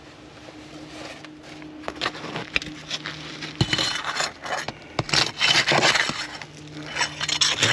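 Asphalt roof shingles being unsealed: the adhesive seal strip crackling and tearing with scraping as the shingle tabs are pried up, starting with scattered clicks and growing into two longer stretches of crackling. The shingles are stiff and not pliable enough to lift without damage.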